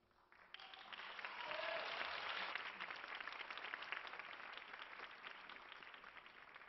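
Audience applauding at the end of a flamenco performance: the clapping starts about half a second in, swells quickly, then slowly thins out.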